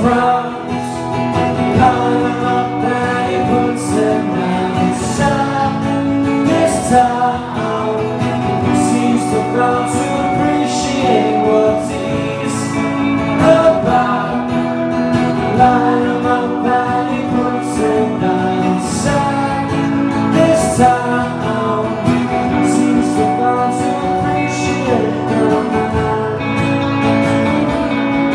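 A man singing to a strummed acoustic guitar in a live solo performance.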